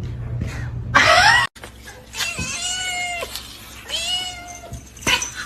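Domestic cat meowing: a short loud call about a second in, then two long, drawn-out meows, with a sharp click near the end.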